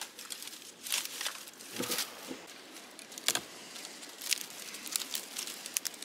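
Dry dead twigs and branches snapping and crackling as they are broken off by hand for firewood, with brush rustling between the snaps. A sharp snap about three seconds in is the loudest.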